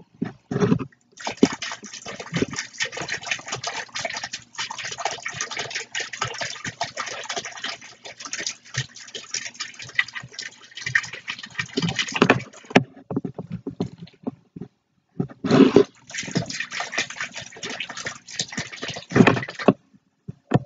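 Small pump-driven fountain jet splashing down into a plastic tub of water, running for about twelve seconds, stopping, then running again for about four seconds before stopping. Heavier splashes come as the jet starts and stops.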